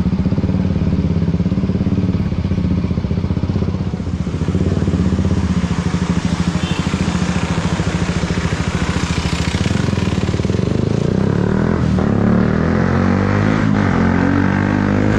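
KTM Duke 125's single-cylinder engine running as the bike is ridden. The note is steady at first, then rises and falls with the throttle over the last few seconds.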